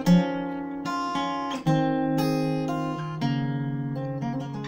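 Solo acoustic guitar played fingerstyle: an Irish traditional tune picked out as plucked melody notes over ringing bass notes.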